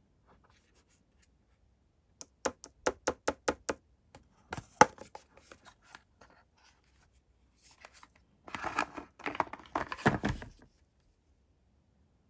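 Hands unboxing a LEGO blind-box minifigure: a quick run of about nine sharp plastic clicks, a few more clicks, then about two seconds of crinkling and tearing of packaging.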